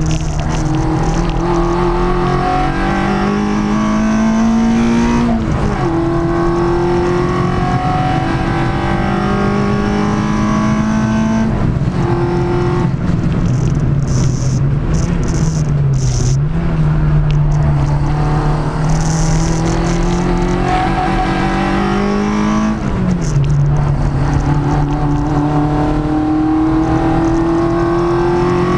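Peugeot 106 four-cylinder track-car engine on Jenvey individual throttle bodies, heard from inside the cabin, pulling hard under full throttle. Its pitch climbs steadily through each gear and drops sharply at each gear change, several times.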